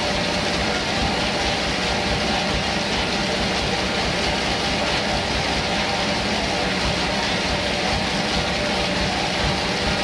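Large sawmill band saw running steadily while teak is fed through it, a loud even machine drone with a hiss of cutting.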